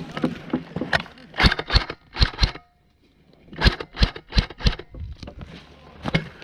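Airsoft rifle firing single shots in two quick runs of four or five sharp cracks, about three a second, with a short pause between the runs and one more shot near the end.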